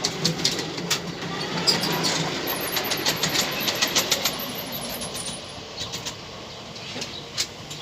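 Miniature ride-on railway train running on its track, with a quick run of sharp clicks from the wheels over the rail joints. The sound fades toward the end.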